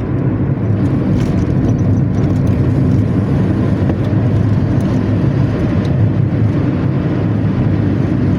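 Steady low drone of a bus engine with road noise while driving on the highway.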